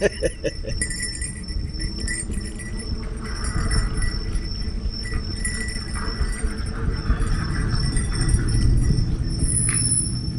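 Recorded train sound effect played through the tunnel's sound installation: a steady low rumble with thin high ringing tones over it and light metallic jingling.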